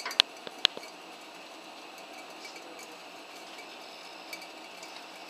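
Two sharp metallic clinks of steel tongs against an aluminium pop can in the first second, then a steady hiss from the gas stove burner heating the can.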